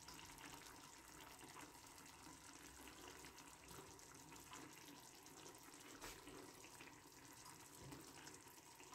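Near silence: a faint steady hiss of room tone, with one light tap about six seconds in.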